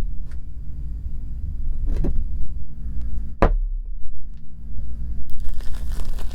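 Slime ingredients being handled and mixed: a low rumble of handling with a few sharp clicks, the loudest about three and a half seconds in, then from about five seconds in a steady crackling of many small clicks.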